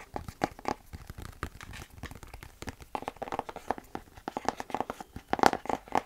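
Close-miked handling noise: hands moving and tapping objects, giving a dense run of small crackling clicks and scratches, loudest about five and a half seconds in.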